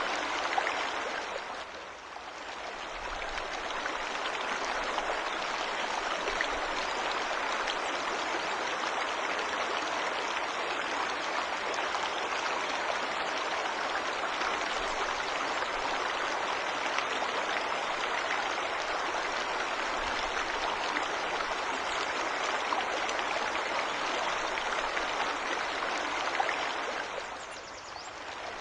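Waterfall: steady splashing and hissing of falling water, dipping briefly in loudness about two seconds in and again near the end.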